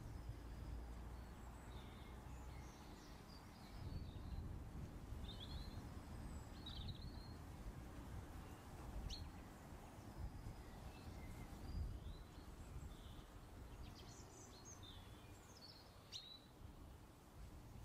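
Faint ambience of scattered small-bird chirps over a low, steady rumble.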